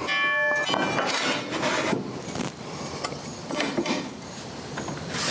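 A metal square clinks and rings briefly, then wood parts of the jig are shifted and tapped, with light knocks and rubbing, as the jig is adjusted square.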